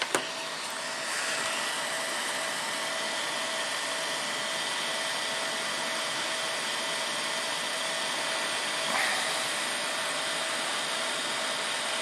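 Electric heat gun running steadily, its fan blowing hot air with a faint steady whine, coming up to speed over the first second. It is shrinking heat-shrink tubing over a soldered wire connection.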